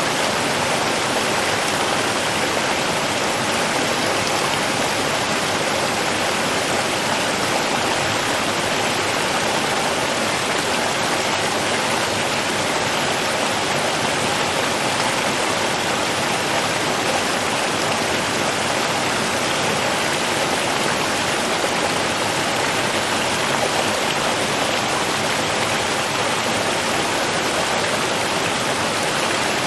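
Running water rushing steadily, an even, unbroken hiss with no splashes or pauses.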